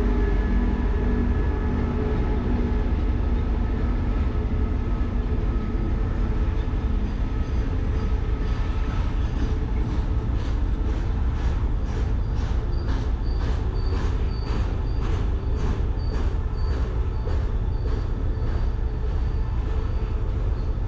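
SRT CSR diesel locomotive 5113 passes at the head of a long container freight train, its engine hum fading over the first several seconds. The loaded container wagons then roll by with a steady clicking of wheels over the rail joints and a recurring high wheel squeal from about nine seconds in.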